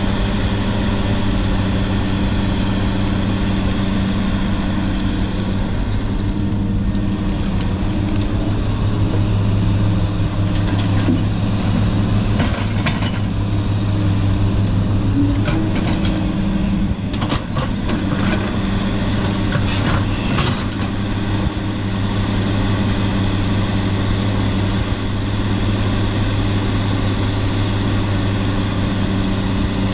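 Caterpillar 318 hydraulic excavator's diesel engine running steadily under working load as it digs creek mud and swings to load a dump truck. A run of knocks and clunks comes around the middle, while the bucket is over the truck bed.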